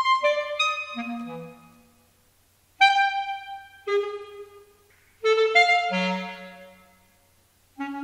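Solo clarinet playing short, quick phrases with wide leaps between low and high notes, each phrase followed by a brief pause.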